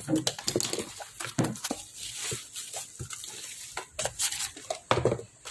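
Cardboard box and bubble-wrap packaging being handled and pulled open: crinkling, rustling and scraping with many scattered small clicks.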